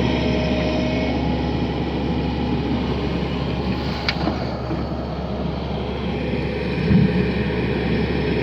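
An engine running steadily with a low drone, with a sharp click about four seconds in and a brief low thump near seven seconds.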